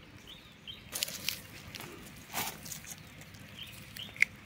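Dry fallen leaves crunching and rustling in short crackly bursts, about a second in and again near the middle, as a hand gathers brittle tamarind pods from the leaf litter, with one sharp click near the end.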